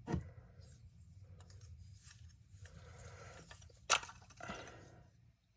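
Small metal clicks and scrapes from a carburetor being taken apart by hand, with one sharp click about four seconds in.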